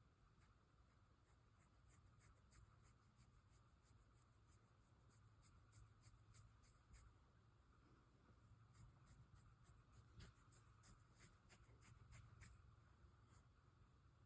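Near silence: room tone with faint, irregular clicking or scratching and a faint low hum.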